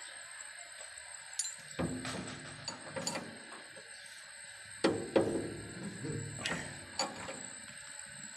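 Irregular metallic clicks and clanks with short ringing as a steering tie rod is turned and its new tie rod end fitted by hand, metal parts knocking and grating together; the loudest clank comes about five seconds in.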